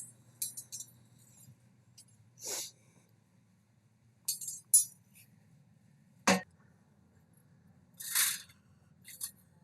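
Objects being handled and shifted by hand: scattered rustling scrapes, light clinks and one sharp knock about six seconds in, over a faint steady low hum.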